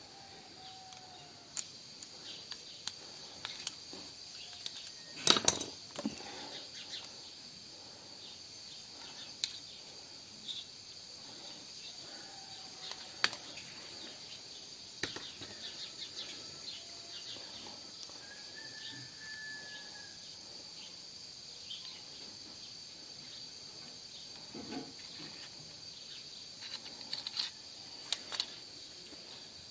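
Scattered small metallic clicks and taps, a cluster of them loudest about five seconds in. Steady high insect chirring, typical of crickets, runs underneath.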